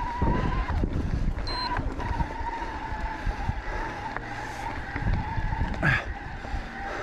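Electric mountain bike motor whining steadily under load on a steep dirt climb, its pitch dipping slightly, over the rumble of the tyres on the trail. A short sharp squeak about six seconds in.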